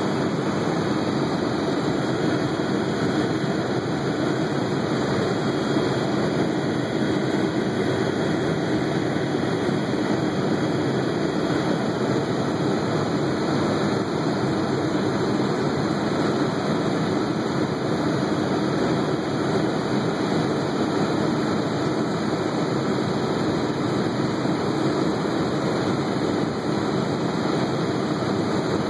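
Helicopter in flight: a steady, even drone of engine and rotor noise with no change in level.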